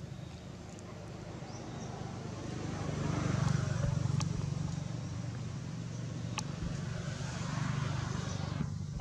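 Motor traffic passing: a low engine hum with tyre hiss that swells twice as vehicles go by, with a couple of faint clicks.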